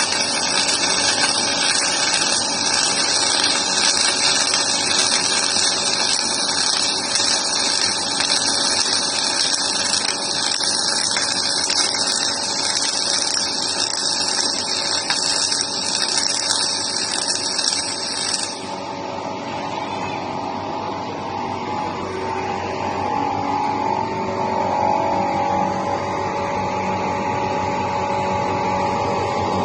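Steady machine noise with a hiss and several steady tones, changing abruptly about two-thirds of the way through to a duller sound with a hum.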